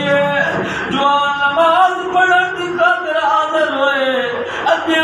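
A man's unaccompanied voice chanting in a melodic recitation, with long held notes that slide up and down in pitch.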